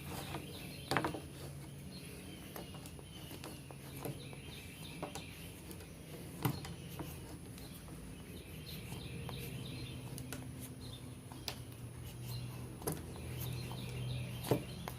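Small birds chirping in repeated short phrases, with a few scattered sharp ticks and a steady low hum underneath.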